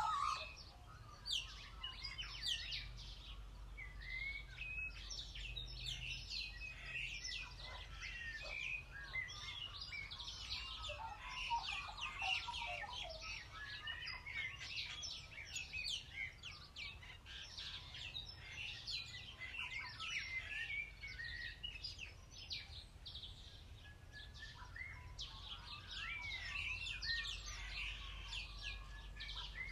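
Many wild birds singing and chirping together, with overlapping short calls and whistles throughout over a faint low background rumble.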